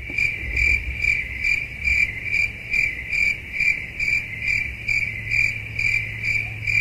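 Cricket chirping, a high pulsing trill repeating about twice a second over a low steady hum. It starts and stops abruptly, as a 'crickets' sound effect laid over the clip.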